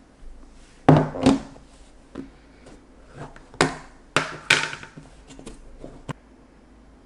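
A series of irregular knocks and clunks of hard objects being handled and set down. The loudest come about a second in and again around four seconds in.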